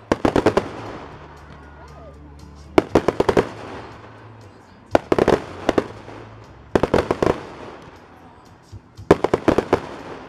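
Fireworks display: aerial shells bursting in five volleys about two seconds apart, each volley a run of several quick bangs that trails off in a rolling echo.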